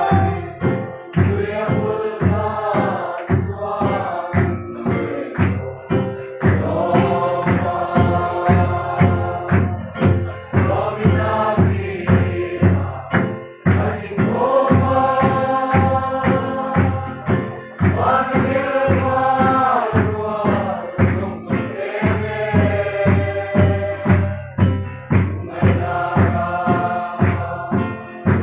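A room full of people singing a Mizo lengkhawm hymn together in unison, with long held notes. A guitar and a steady beat of about two strokes a second accompany them.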